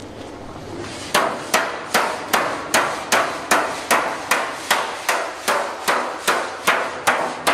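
Hand hammering of an aluminium body panel by a coachbuilder: a steady run of sharp blows, about two and a half a second, starting about a second in.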